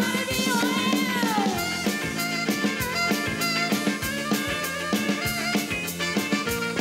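Music with a steady drum-kit beat; a melody line slides down in pitch about a second in.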